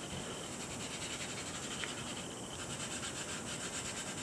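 Faint, steady rubbing of fingertips on a sheet of drawing paper laid over inked plexiglass, pressing in extra tone for the ink transfer.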